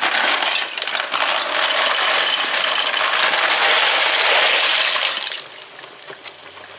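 Dry ziti pasta rattling and clattering as it pours out of a cardboard box into a pot of boiling water. The clatter is loud and continuous for about five seconds, then stops abruptly.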